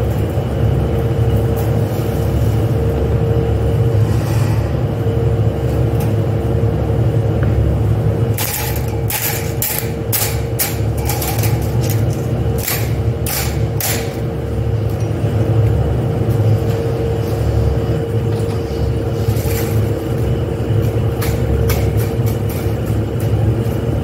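Steady, loud hum of factory machinery with a constant drone. A quick series of sharp knocks and clatter comes between about 8 and 14 seconds in, as long pieces are hung onto the metal hooks of an overhead conveyor rack.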